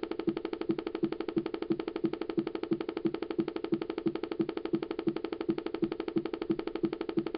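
2007 iMac making a loud, steady pulsing hum, about three pulses a second: an unexplained fault noise that began recently after waking from sleep.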